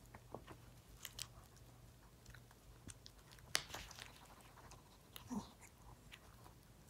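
A Maltese dog biting and gnawing on a toy ball: faint, scattered clicks of teeth on the ball, with one sharper click about three and a half seconds in.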